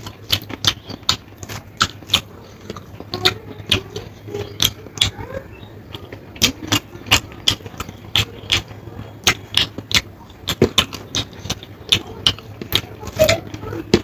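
Close-miked eating: wet chewing and mouth smacking with irregular sharp clicks, several a second.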